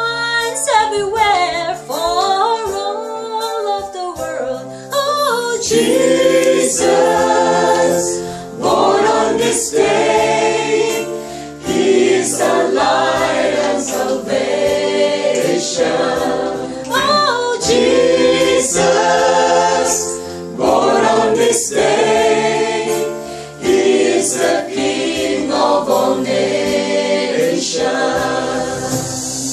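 A small group of men and women singing a song together, opened by one woman's solo voice before the whole group comes in about five seconds in.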